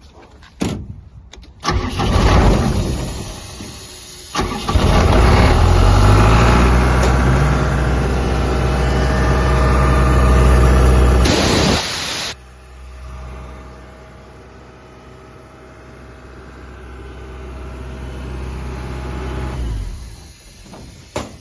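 Ingersoll Rand R1160F portable air compressor engine cranked and started, then speeding up, its pitch climbing for several seconds. A loud hiss of air follows for about a second. The engine then drops to a lower, steady idle and stops near the end.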